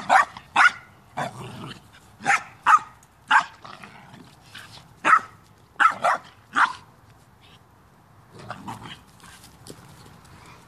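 A dog barking in rough play with a pit bull puppy: about ten short, sharp play barks in quick clusters of two or three, with quieter low rumbles between.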